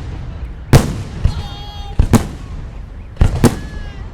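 Aerial fireworks shells bursting in a string of loud, sharp bangs, about five in four seconds, each with an echoing tail.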